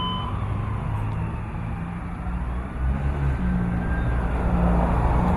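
A heavy vehicle engine, likely the fire engine's diesel, idling with a steady low hum that grows louder toward the end. A dispatch radio alert tone cuts off just as it begins.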